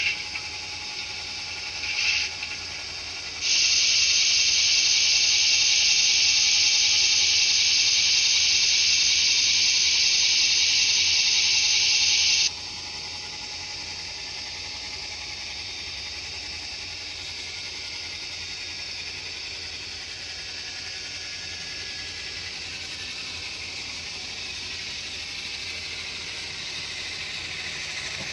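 Model locomotive DCC sound decoder playing a hiss effect: two short hisses, then a loud steady hiss for about nine seconds that cuts off abruptly, leaving a quieter steady hiss.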